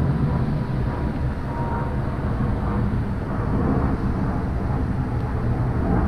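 Steady low rumble of wind buffeting the microphone, over the rush of water pouring down a weir.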